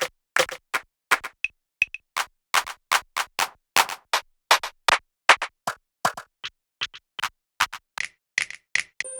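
Snare drum samples from a dembow/reggaeton sample library played one after another: short, sharp, separate hits, about three a second, each cut off cleanly. About nine seconds in, a sustained tone with several steady pitches begins.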